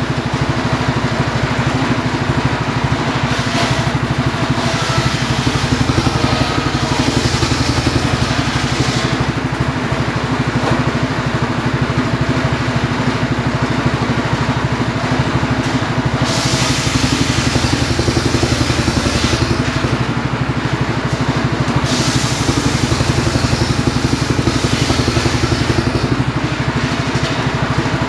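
Homemade engine-driven circular saw ripping logs lengthwise: the engine runs steadily with a fast, even beat, and the high hiss of the blade in the wood comes and goes several times as the logs are fed through.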